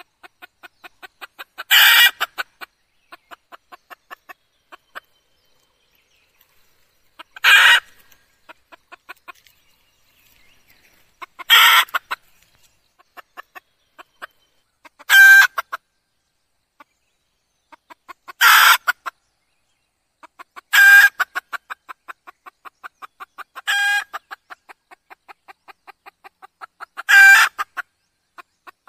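Red junglefowl hen calling: about eight loud, short calls a few seconds apart, with runs of soft, quick clucks between them.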